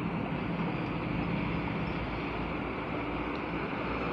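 Muddy rainwater runoff rushing steadily into a kerbside storm-drain inlet, a continuous even rush with a faint low hum underneath.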